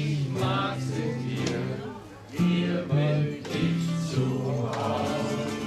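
Acoustic guitars playing an unplugged song, strummed chords with moving bass notes and a melody line over them.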